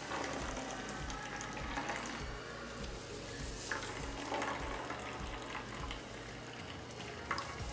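Green juice trickling and splashing into a glass jar as a cloth straining bag of blended greens is squeezed by hand.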